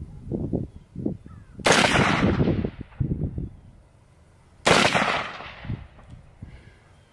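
Two 5.56 rifle shots about three seconds apart, each a sharp crack with an echo trailing off over about a second.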